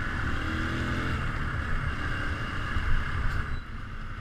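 Keeway Cafe Racer 152 motorcycle's small single-cylinder engine running while riding, heard over wind and road noise on the rider's microphone; the engine sound eases off about three and a half seconds in.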